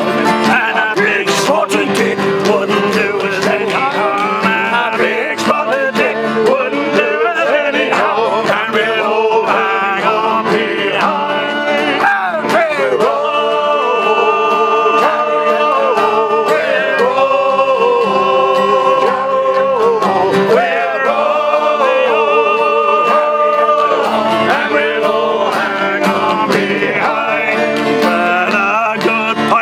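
A group of men sings a sea shanty in chorus, accompanied by acoustic guitar and ukulele, with some long held notes.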